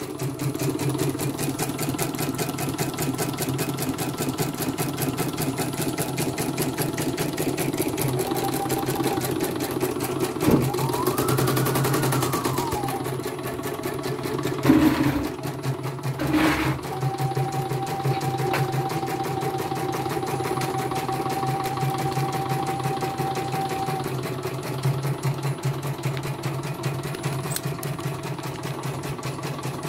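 CNY E900 computerised embroidery machine stitching a design: a steady, rapid needle clatter, on a test run after its power supply was replaced. A faint whine rises and falls about eleven seconds in, and two sharp knocks come a few seconds later.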